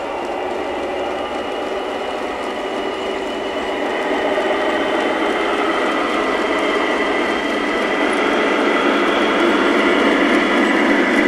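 Several G scale model diesel locomotives pulling a long train along the track, a steady mechanical running hum with several whining tones that grows louder as the train approaches.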